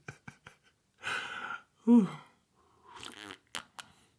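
A man's breathy laughing and a short vocal sound that falls in pitch, then a sip from a mug with a couple of sharp mouth clicks near the end.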